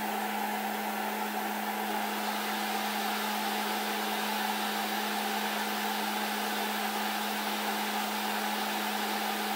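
Snapmaker 2.0 3D printer's cooling fans whirring steadily: an even hum with one steady low tone under a hiss.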